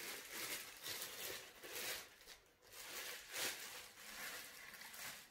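Plastic bag crinkling and rustling in irregular bursts as a glass grill lid is pulled out of it.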